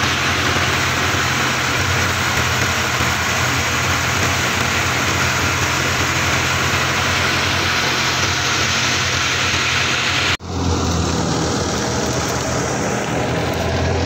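Wheat thresher running steadily: a low engine hum under a loud rushing hiss of chopped straw and chaff being blown out onto the pile. About ten seconds in the sound cuts briefly, then the hiss is much fainter and the engine hum carries on.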